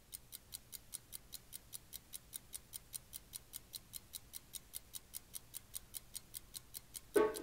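Steady, rapid ticking, about five sharp ticks a second. Near the end, loud tribal-style hand percussion comes in.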